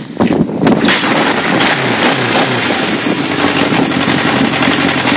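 Kawasaki KZ650's air-cooled inline-four engine kick-started, catching almost at once with a quick rev, then the revs falling away to a steady idle.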